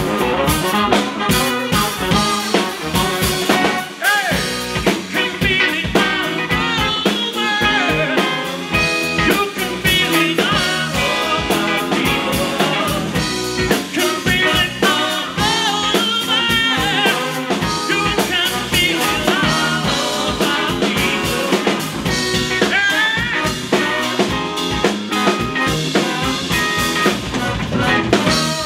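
Live band playing: a horn section of trumpet, trombone and saxophone over electric bass and drum kit, loud and steady throughout.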